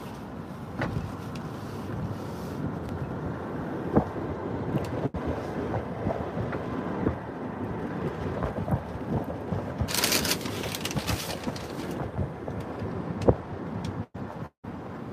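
Road and engine rumble of a car driving, heard from inside the cabin, with wind buffeting the phone microphone. A few knocks from handling the phone come through, along with a brief burst of hiss about ten seconds in.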